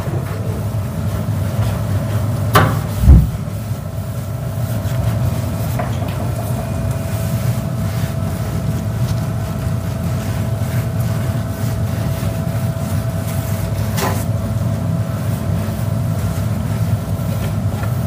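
A steady low mechanical hum with a faint steady tone over it, broken by a sharp knock and a low thump about three seconds in and another click near the end.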